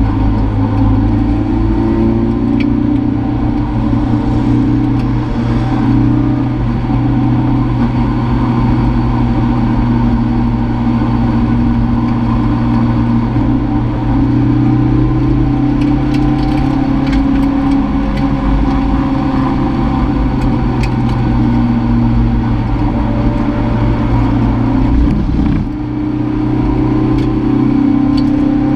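Toyota MR2 race car's mid-mounted engine heard from inside the cabin, running steadily at low revs under light load as the car rolls slowly into the pit lane, with a brief dip in level about 25 seconds in.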